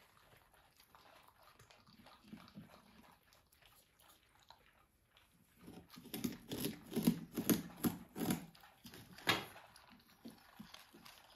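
African crested porcupines gnawing on a whole pumpkin. It is faint at first, then about six seconds in comes a run of crunching bites, about three a second, with the loudest one near the end.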